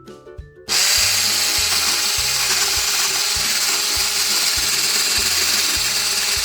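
Electric hand mixer switched on less than a second in and running steadily, beating egg whites and icing sugar into meringue. Background music with a steady beat plays under it.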